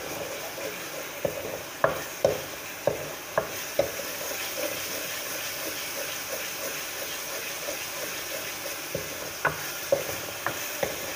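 Wooden spoon stirring and scraping fried onion paste with ground spices in a metal pot, over a steady sizzle of frying. The spoon knocks against the pot often in the first few seconds and again near the end.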